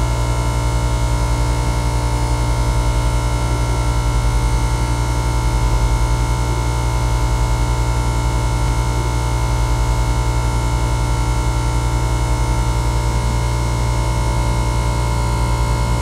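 Small electric air pump working as the refrigerant compressor of a homemade mini air conditioner, running with a loud, steady, low buzzing hum alongside its cooling fan. The system is running and cooling: the evaporator coil is frosted over.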